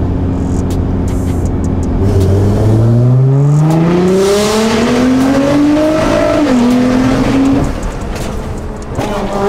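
Nissan GT-R R35's twin-turbo V6 heard from inside the cabin, pulling hard: the engine note climbs steadily for about four seconds, drops at an upshift, holds, then the driver lifts off; it picks up again briefly near the end.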